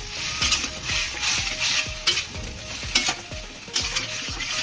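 Sauced pasta and vegetables sizzling in a stainless steel kadhai while a spatula stir-fries them, scraping and tapping against the pan about once every half second to second. This is the last short fry before the dish is done.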